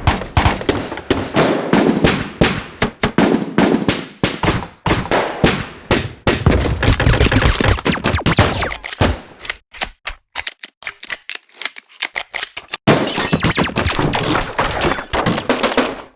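Firearms firing: rapid runs of automatic gunfire mixed with single shots. The shots thin out to a few spaced reports about two-thirds of the way through, then pick up again in dense bursts.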